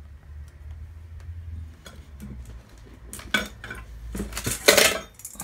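Hard household items clinking and knocking as they are handled and set down on a surface, with a cluster of clatters in the last two seconds, the loudest just before the end.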